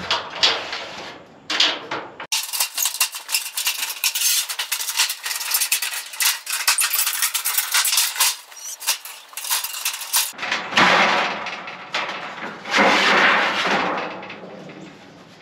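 Thin sheet metal being worked on sawhorses: clattering and scraping as the sheet is handled. In the middle comes a longer run of rapid, dense clicking, and near the end the sheet is lifted with a broad rattle.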